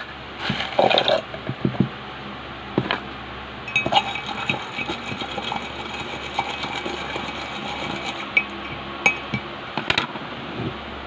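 Pebbles dropped into a glass mug of water, sauce, salt and sand, then a thin wooden stick stirring the gritty mixture, clinking and scraping against the glass with many small clicks for several seconds.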